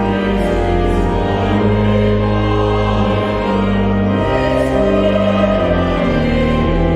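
Church music: sustained organ chords with a steady bass line, changing every second or so, with voices singing along.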